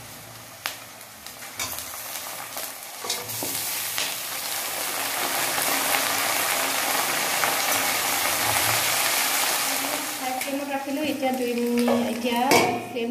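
Pork chunks and sliced onions frying in a hot wok. The sizzle swells a few seconds in as the meat heats, and a metal spatula scrapes and clicks against the pan. Near the end a metal lid is set on the wok.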